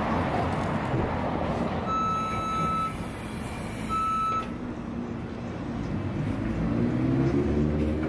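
Street traffic noise with a vehicle's reversing beeper giving two high, steady beeps, the first about two seconds in and a shorter one about two seconds later, over a vehicle engine's rumble.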